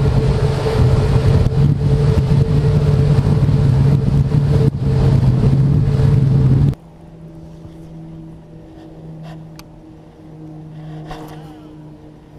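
Boat motor running at speed with heavy wind and water noise. About two-thirds of the way through it cuts off abruptly to a much quieter, steady engine hum with a few light clicks.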